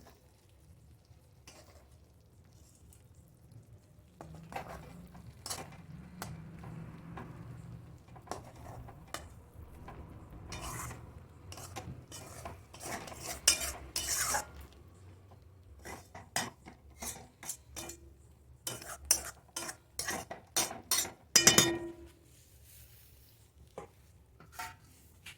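A metal spoon or spatula stirring, scraping and clinking against a cooking vessel in irregular strokes, with a quick run of clinks about three quarters of the way through.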